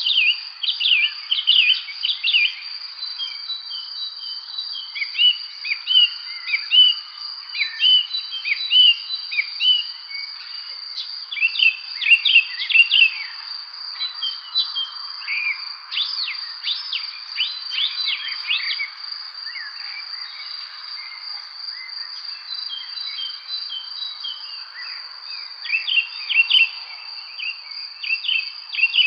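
Songbirds chirping and whistling in quick short phrases over a continuous high-pitched insect trill. The bird calls thin out for a few seconds past the middle, then pick up again near the end.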